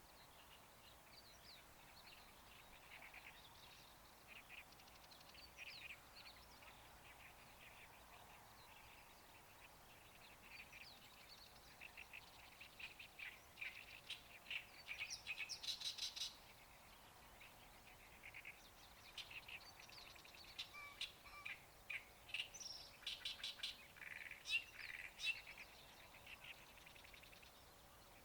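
A small songbird calling in quick runs of chirps. It is loudest about halfway through and again near the end, over a faint steady outdoor hiss.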